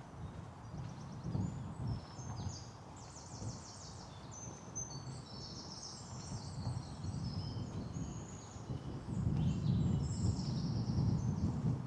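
Several songbirds singing at once, a mix of short chirps, whistles and a rapid trill, over a low outdoor rumble with soft footsteps on the path; the rumble swells about nine seconds in.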